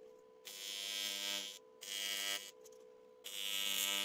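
AC TIG welding arc from a Miller Dynasty 210 set to 100 Hz, buzzing on aluminium in three short bursts of about a second or less each: tack welds being struck to join the pieces.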